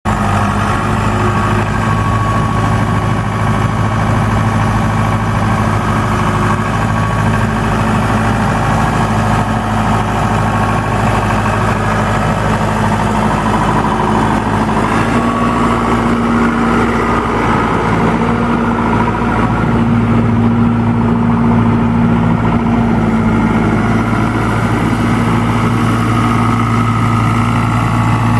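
John Deere 5520 tractor's 4.5-litre four-cylinder PowerTech diesel running steadily at low engine speed, its pitch stepping up slightly about halfway through.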